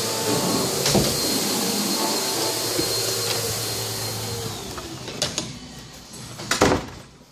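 A steady machine hiss with a faint high whine and a low hum, like a blower or ventilation unit, fades out after about four and a half seconds. A few clicks follow as a door is handled, then a sharp door knock about six and a half seconds in.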